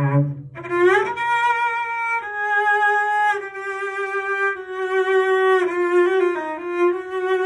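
Solo cello bowed in a slow melody of long held notes with vibrato, sliding up into a held note near the start, with a few quicker notes around six seconds in.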